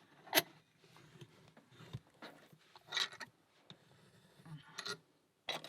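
A small padlock being handled: a few light clicks and taps with soft rubbing in between.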